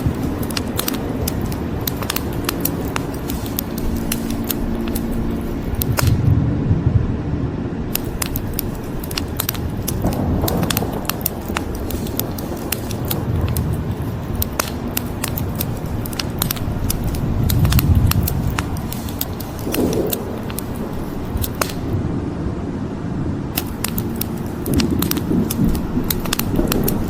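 Wood fire crackling with many sharp pops and snaps over a steady hiss of rain, with low rumbles of thunder swelling about six seconds in and again near eighteen seconds.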